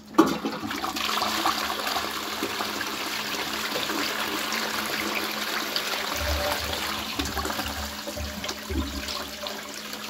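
Qualitas Versailles close-coupled toilet flushing through a Fluidmaster Pro dual-flush syphon. Water rushes into the pan with a sudden start, runs steadily, then eases off near the end, with low gulps from the trap in the second half as the bowl empties.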